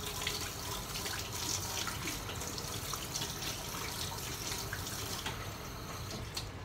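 Kitchen tap running into a stainless-steel sink, the stream splashing over hands being rinsed under it. The flow stops near the end.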